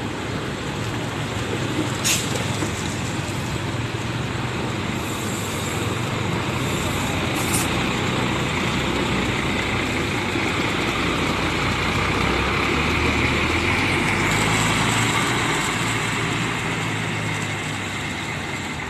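Diesel engine of an intercity coach pulling away and turning out, its sound swelling and then easing off as it moves off. Two brief high hisses are heard, about two and seven seconds in.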